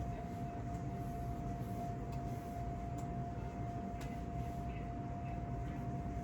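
Steady low room hum with a constant faint whine, and a few faint clicks.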